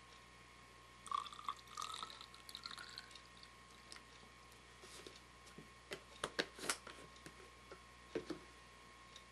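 Liquid poured from a plastic bottle into a small plastic measuring cup, splashing and trickling for about two seconds starting about a second in. A quick cluster of sharp clicks and taps follows around six seconds in, and a single knock near the end.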